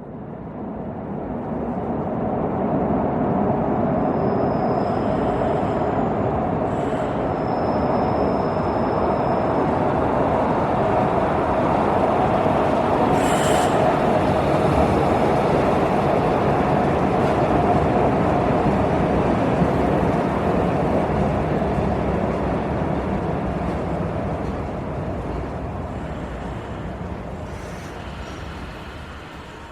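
Metro train running on its rails, a steady rumble that builds over the first few seconds, holds, and fades toward the end. Two brief high-pitched squeals come a few seconds in, and a sharp click about halfway through.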